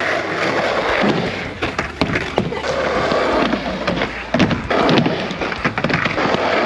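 Skateboard wheels rolling on the ground and up a wooden ramp, with a run of sharp clacks and thuds as the rider bails off and the board slaps down on the ramp deck.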